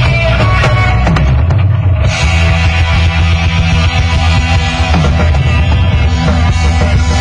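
Live rock band playing an instrumental passage: drum kit, electric guitar and keyboard, loud and dense. The cymbals drop out briefly about a second and a half in, then the full band comes back in.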